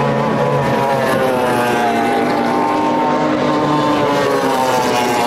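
Formula 2 tunnel-hull race boat's outboard engine running flat out at speed, a loud steady drone whose pitch rises and falls slightly.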